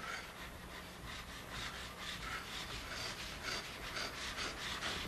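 Quiet rasping strokes of a hand tool scraping a hard surface, repeated a few times a second.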